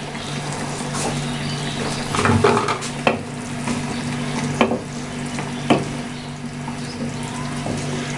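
Wooden spatula stirring and scraping a simmering chicken and chickpea curry in a non-stick frying pan while the curry sizzles, with several sharp knocks of the spatula against the pan.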